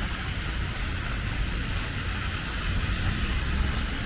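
Steady street traffic: car engines rumbling low and tyres hissing on a snowy road.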